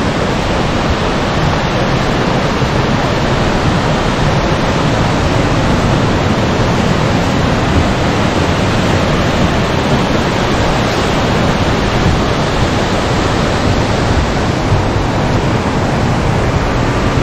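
Urami-no-taki waterfall heard close up: falling water making a steady, loud, even rush.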